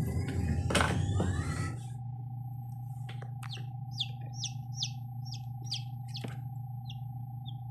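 A newly hatched chick peeping in an incubator: a run of about nine short, high, falling peeps from about three seconds in, over the incubator's steady hum. A louder jumble of noise with a sharp click fills the first two seconds and then cuts off.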